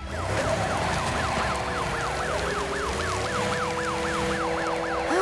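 Fire truck siren in a fast yelp: a rising sweep repeating about four to five times a second, over background music with held notes. Right at the end a falling glide sets in.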